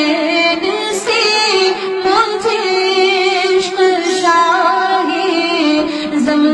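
A woman singing an Urdu devotional naat into a handheld microphone, a continuous melodic line of long, bending held notes.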